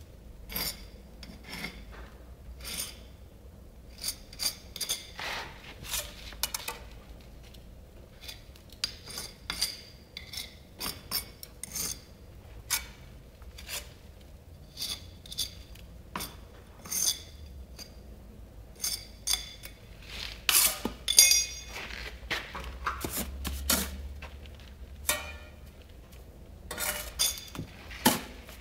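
Small steel trowel scraping and clinking against brick as mortar is worked into the joints of the cut arch skewbacks, in many short, irregular strokes with a louder cluster about two-thirds of the way through.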